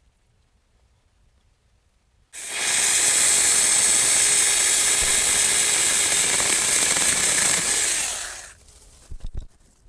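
Saker 4-inch 20 V cordless mini electric chainsaw starting about two seconds in and running steadily for about six seconds while trimming tree branches, then winding down. A few short knocks follow near the end.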